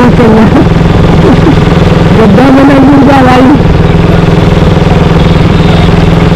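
A motor vehicle's engine running steadily at speed on the road. A voice rises over it for about a second, about two and a half seconds in.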